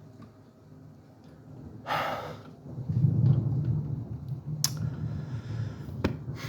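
Low rolling thunder rumble that comes in about three seconds in and carries on, after a short hissy burst. Two sharp clicks sound near the end.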